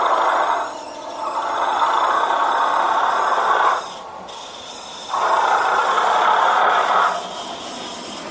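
Sound chip in a 7mm-scale Heljan class 37 diesel locomotive model playing through the model's speaker as it runs: loud sustained sounds that switch on and off abruptly three times, the first brief and the others about two to two and a half seconds long, with a quieter steady engine-like sound between them.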